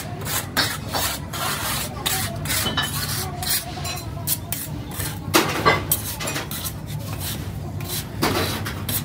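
Steel moulding flasks being scraped and knocked against each other as they are shifted and set together by hand, in irregular gritty strokes, the loudest about halfway through and near the end. A steady low hum runs underneath.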